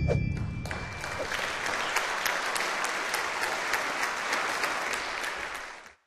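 Audience applauding, a dense patter of many hands that fades out near the end. It opens with a quick falling swoosh, and the tail of a music cue dies away in the first second.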